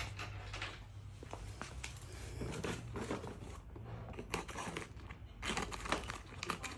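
A parcel being opened by hand: packaging rustling and tearing, with scattered clicks and taps, and a knock right at the start.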